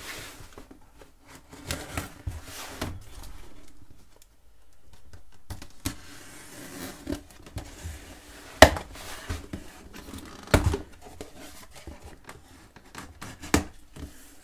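A knife slitting packing tape on a cardboard box, with scraping and crackling of the tape and cardboard, and scattered sharp knocks as the box is handled. Near the end the cardboard flaps are pulled open.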